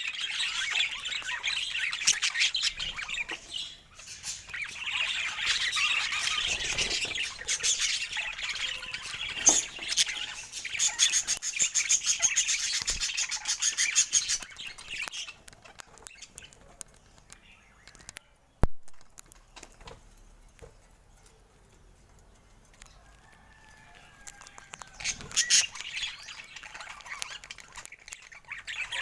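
Budgerigars chirping and chattering in a dense, rapid high warble for about the first half, then only scattered chirps and clicks, with another short burst of chatter near the end.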